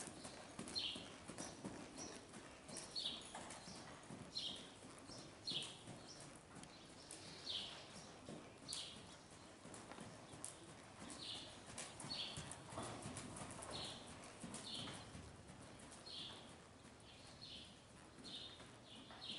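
Hoofbeats of a ridden horse trotting on soft dirt arena footing: muffled thuds with light clicks. Short high chirps recur about once a second over them.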